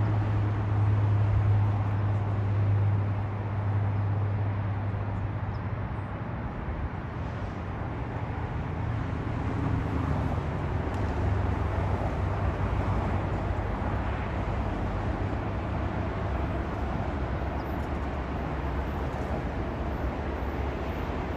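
Steady rumble of distant road traffic, with a low engine hum that is strongest in the first few seconds and then fades.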